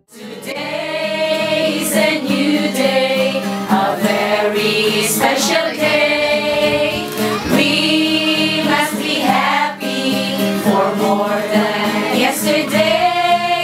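A group of voices singing together in chorus over a steady instrumental backing.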